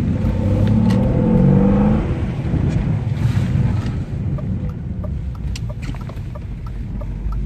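BMW E36 M3 straight-six engine pulling up through the revs under acceleration for about two seconds, then easing off to a steadier cruise with road noise, heard from inside the cabin.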